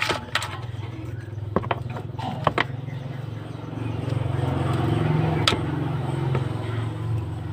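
A vehicle engine running with a steady low hum that swells for a couple of seconds in the second half, with several sharp clinks or knocks over it.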